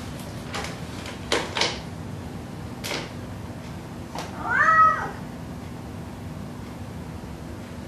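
A domestic cat meows once about halfway through, a single call rising then falling in pitch. Earlier come a few sharp clicks and knocks from a plastic cat flap swinging and rattling as the heavy cat squeezes through it.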